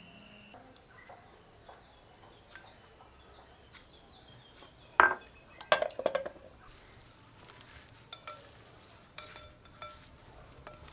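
Clinking and tapping against a glass salad bowl as it is worked with kitchen utensils. There are two sharp, louder clinks about halfway through, then lighter taps that ring briefly.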